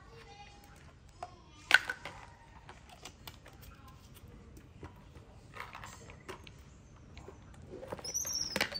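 Plastic bottles and caps clicking and knocking as they are handled over a wicker basket, with one sharp click about two seconds in. A brief high squeal comes near the end.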